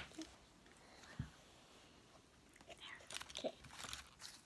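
Mostly quiet room with a small low thump about a second in and a scatter of faint clicks and rustles in the second half.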